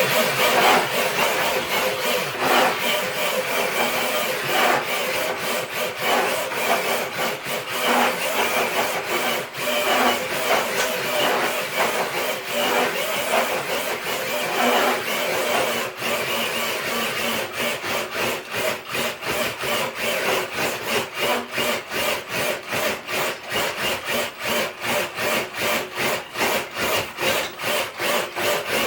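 RC crawler truck pulling a weighted dead sled across concrete: continuous scraping of the sled with the drivetrain whirring, in uneven surges at first, then an even rapid pulsing over the last third.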